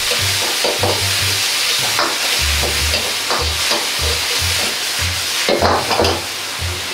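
Pork and green pepper strips sizzling hard in a wok over a high gas flame while a splash of stock is stirred in, with a steady frying hiss. The metal ladle scrapes across the wok now and then.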